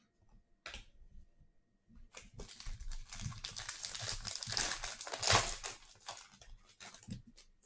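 Plastic crinkling from handling trading cards and their packaging: a light tap, then several seconds of continuous crackling that peaks about five seconds in and fades out near the end.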